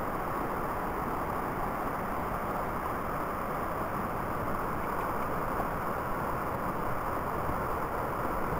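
Steady rush of a brook flowing over rocks, an even unbroken noise.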